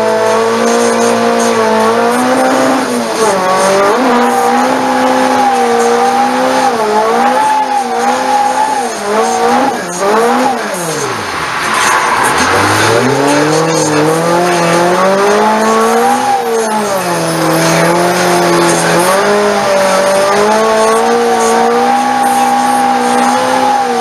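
Toyota AE86's engine heard from inside the cabin, held at high revs and rising and falling with the throttle while drifting on a wet track. About ten seconds in the revs drop right off, then climb back up with a burst of hissing noise.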